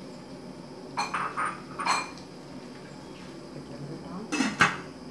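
Stainless steel cooking pot and its metal lid clinking: a few light clinks about a second in, then a louder clatter near the end as the lid is set down on the pot's rim.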